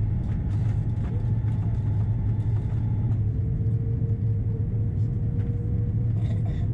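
Cabin noise inside an Airbus A330-300 descending on approach: a steady low rumble of engines and airflow. A faint steady whine sits over it and drops to a lower pitch about three seconds in, with a few light cabin rattles.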